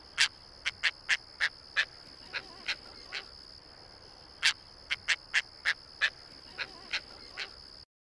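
Caspian tern calling: a run of short calls, about nine in the first three seconds, then a pause of about a second and a half and a second run of about eight.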